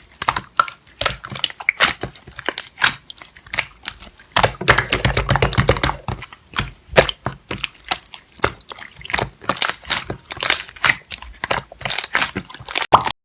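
Slime being squished and poked: an irregular run of sticky wet clicks and pops, with a denser squelching stretch about five seconds in.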